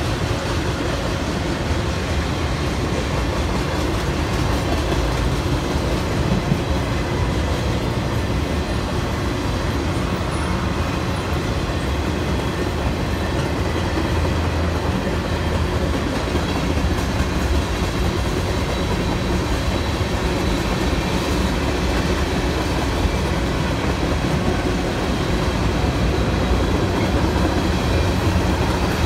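Freight cars of a mixed freight train rolling past close by: a steady, unbroken rumble of wheels on the rails, with faint steady high tones above it.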